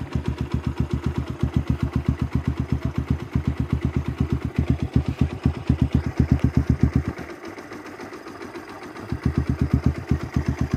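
Honda XR200's air-cooled single-cylinder four-stroke engine idling, a steady even exhaust beat of about seven pulses a second. About seven seconds in the beat fades for roughly two seconds, then comes back.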